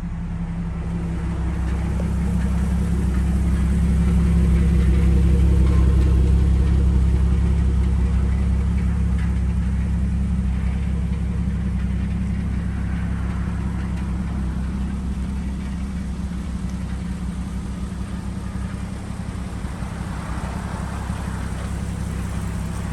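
Jeep Wrangler TJ's 4.0-litre inline-six engine idling, a steady low rumble that swells louder a few seconds in and then eases back.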